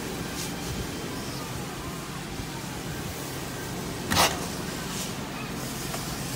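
Carpet-cleaning extraction wand gliding over carpet, with the steady rush and low hum of the machine's suction, and a brief louder hiss about four seconds in.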